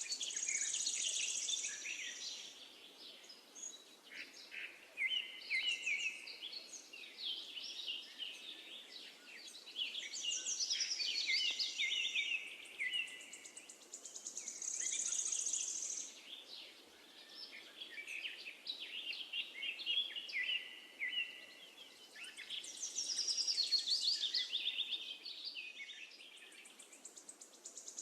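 Songbirds singing in quick chirping phrases, one after another, with a buzzy high trill coming back every ten seconds or so.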